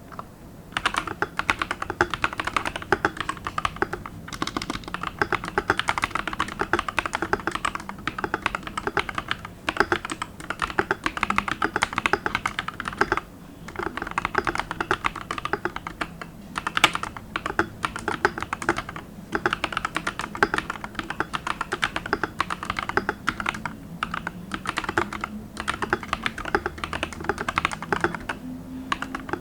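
Fast, continuous typing on a Tecware Spectre mechanical keyboard with Honey & Milk XDA keycaps and Akko CS Green switches on the letter keys. The rapid key clacks begin about a second in and break off for a moment several times.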